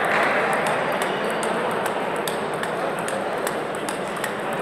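Table tennis balls clicking off bats and tables at several tables at once, in quick irregular taps, over a steady background of many voices in a large hall.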